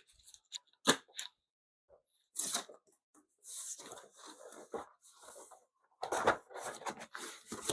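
Unboxing packaging being handled: irregular rustling and crinkling of cardboard and plastic as items are taken out, with a sharp knock about a second in.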